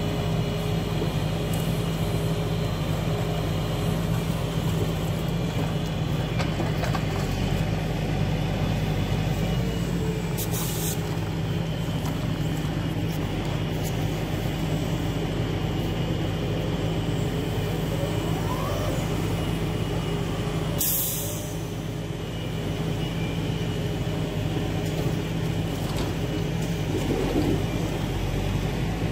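Log truck's diesel engine running steadily to drive the hydraulics of its self-loading crane as the grapple lifts logs off the trailer.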